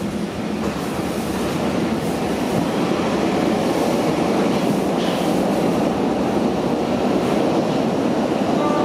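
Berlin U-Bahn type F79 subway car running through the tunnel, heard from inside the car: the rumble of wheels on rail and traction motors grows over the first couple of seconds as the train gathers speed, then holds steady. A brief faint tone sounds near the end.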